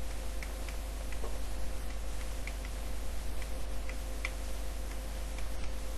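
Light, irregular ticks and taps of a pen stylus on the writing surface as words are written by hand, over a steady electrical hum.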